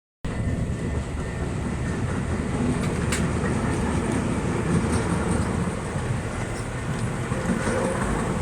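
Train passing over a level crossing: a steady, heavy rumble of wheels on the rails with scattered clicks.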